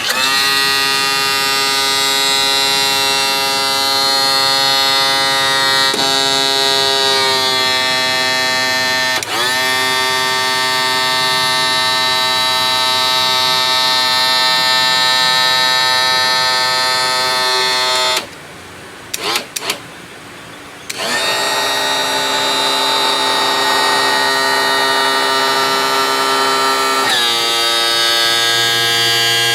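The new electric tilt-and-trim pump motor on a 1992 Johnson 60 hp outboard runs with a steady whine as the motor is run up and down to purge air from the freshly topped-up trim fluid. The pitch sags briefly about a third of the way in. A little past halfway it stops for a few seconds, apart from a few short blips, then runs again.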